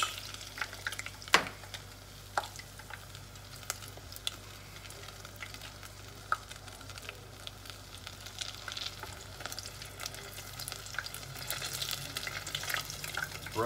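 Oil sizzling steadily as a rolled flour tortilla taquito deep-fries in a saucepan, with metal tongs clicking against the pot now and then as it is held and turned. The sharpest click comes about a second and a half in.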